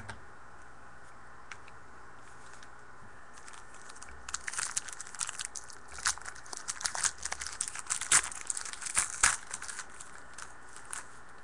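A foil trading-card pack wrapper being torn open and crinkled by hand, starting about four seconds in: a dense run of irregular sharp crinkles and crackles.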